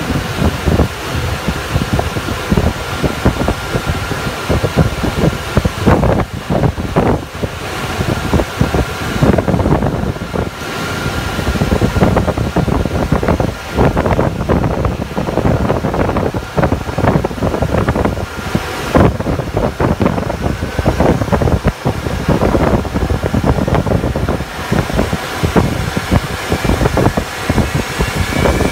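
Steady cockpit noise inside a KC-135 tanker on the ground: the rush of its jet engines and air-conditioning, with uneven rumbling and knocks throughout. A faint rising whine comes in near the end.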